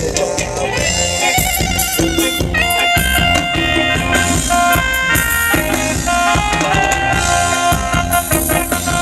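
Live band playing Thai ramwong dance music: a steady drum-kit beat under held melody notes.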